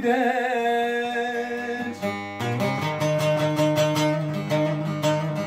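A man's sung note held with vibrato fades out about two seconds in. Then a long-necked bağlama (saz) plays an instrumental phrase, strummed with quick even strokes, about four or five a second, over a steady low drone.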